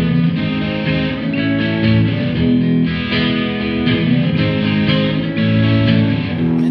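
Electric guitars playing an instrumental passage of a song, chords and held notes ringing with no vocals.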